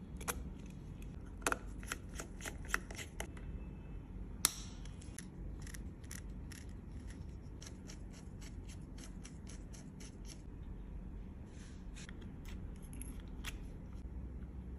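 Small clicks and ticks of a baitcasting fishing reel's metal and plastic parts being fitted and handled during reassembly. A quick run of clicks in the first few seconds, the sharpest about four and a half seconds in, then fainter, scattered ticks.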